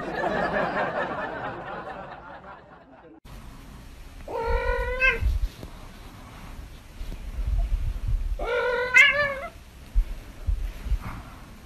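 Domestic cat meowing twice, two drawn-out calls about four seconds apart that each rise slightly in pitch, the second the louder, with low thumps of handling in between. Before them a dense noisy sound fades over the first three seconds and cuts off abruptly.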